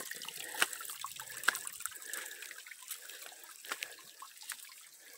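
Rainwater runoff, still flowing after heavy rain, trickling down over rock into a muddy pool, with irregular drips and small splashes scattered through it.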